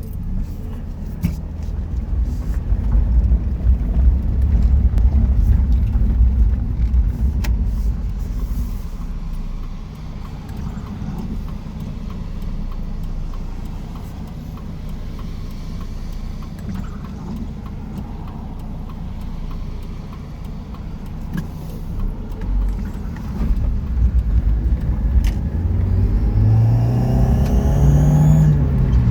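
NA Mazda Miata's four-cylinder engine and road rumble from inside the moving car at light throttle; near the end it revs up and a high whirring whine rises along with it. The owner says the whine grows with throttle and rpm, brings a loss of power, and seems to come from the downpipe area; he suspects a clogged or broken catalytic converter.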